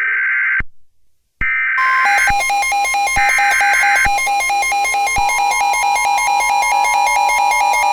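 Emergency Alert System tones for a mock tornado warning. Three short buzzy data bursts of the coded SAME header, then from about two seconds in a loud pulsing electronic alert tone, with a rising tone joining it around four seconds in.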